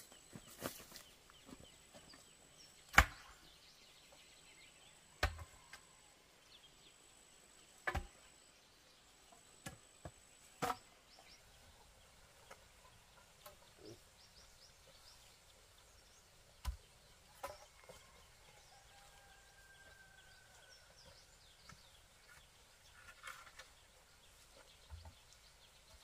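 Wooden poles knocking against each other and the ground as they are dropped and laid across a dug pit: several separate sharp knocks, the loudest about three seconds in, then sparser ones later.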